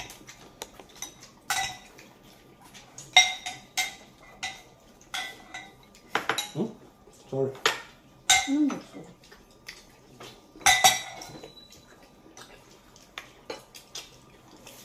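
Eating utensils clinking and knocking against dishes and bowls at a meal, in irregular sharp clinks with a short ring. There are brief bits of voices in between.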